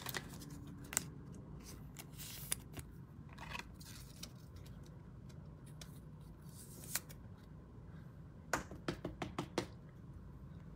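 Faint handling sounds of a trading card and a clear plastic card case: scattered small clicks and light scrapes, with a quick run of sharp clicks about eight and a half seconds in.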